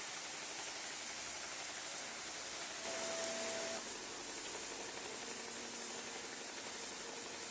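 Steady hiss of steam from a standing LNER K4 2-6-0 steam locomotive, growing a little louder about three seconds in. A short steady tone sounds for about a second at that moment.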